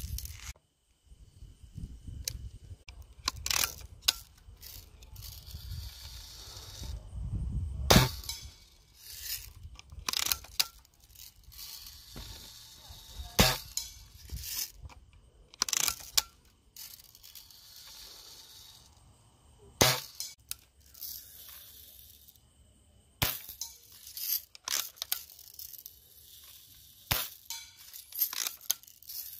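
Daisy Red Ryder lever-action BB gun being cocked and fired over and over: a dozen or so sharp snaps and clacks, spaced a few seconds apart.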